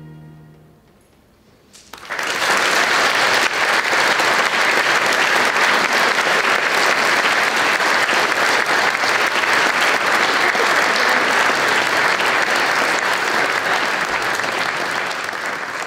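The song's last held note fades out, and about two seconds in a church congregation breaks into steady applause that tapers off near the end.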